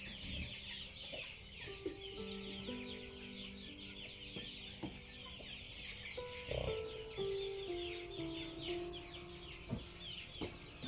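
A flock of chickens cheeping and clucking nonstop while they feed, a dense chatter of short, high, falling chirps.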